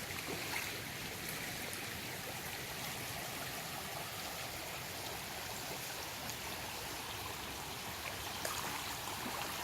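Stream water flowing steadily, an even, unbroken rush.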